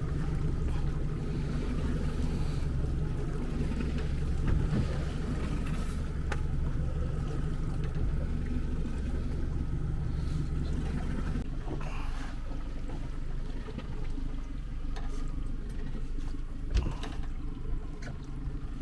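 Small speedboat's engine idling with a steady low hum while the boat sits stopped; a little past halfway the low hum drops away, leaving lighter water and boat noise with a few light knocks.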